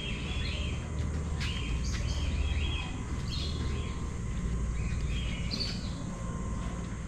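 Birds chirping in short, repeated calls over a steady low background rumble.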